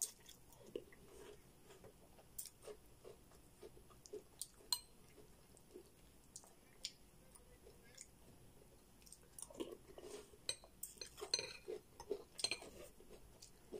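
Close chewing of a mouthful of cereal in milk, with a metal spoon clicking against a ceramic bowl. There are scattered sharp clicks, and a busier run of clinks and crunches about ten seconds in.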